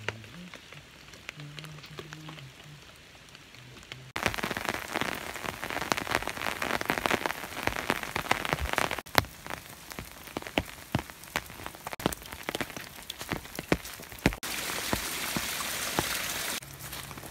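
Rain falling, a dense pattering of many individual drops. It starts faint, then comes in much louder and closer about four seconds in, with several sudden jumps in level after that.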